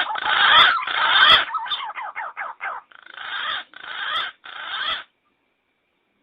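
Green pigeon (punai) lure call played as a recording: a quick series of short falling notes, then four longer noisy bursts, cutting off abruptly about five seconds in.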